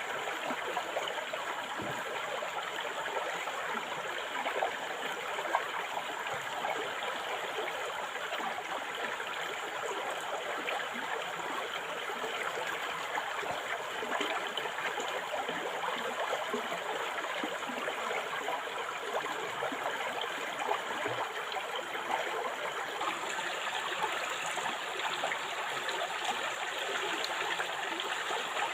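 River water flowing and babbling over rocks, a steady splashing rush with many small gurgles.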